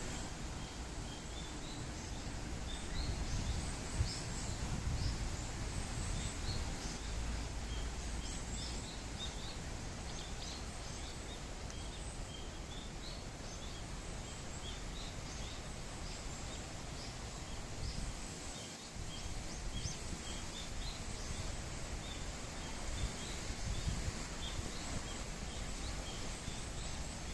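Outdoor ambience of small birds chirping in many short, repeated calls over a steady background hiss, with low gusty rumbling of wind on the microphone.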